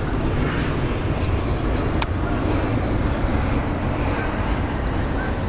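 Steady low rumbling background noise, with one sharp click about two seconds in and a few faint short chirps near the end.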